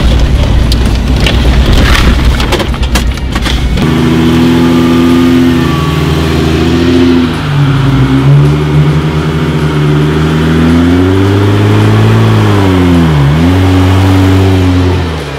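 Jeep Wrangler engine revving up and down as it crawls over a rutted dirt track, its pitch dropping sharply and picking back up twice. Before that there is a rough rumble of the moving vehicle, with a few knocks and rattles.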